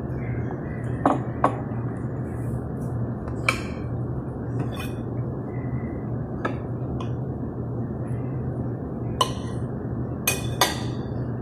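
Metal knife and fork clinking against a plate while pancakes are cut, a short sharp clink every second or so, over a steady low hum.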